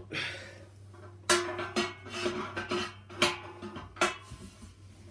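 Stainless steel keg wall creaking and ringing as a knockout hole punch is wrenched through it with a spanner: about four sharp metallic creaks with a broken ringing tone between them. The punch is cutting hard through the steel.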